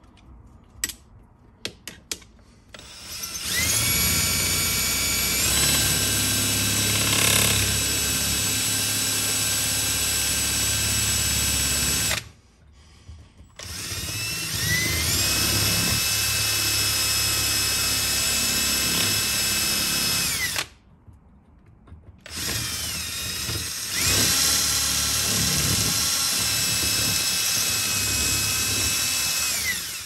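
Power drill boring into a wooden cabinet panel, running in three long bursts with short pauses between. The motor whine rises as it spins up and drops away as each run stops. A few light clicks come before the first run.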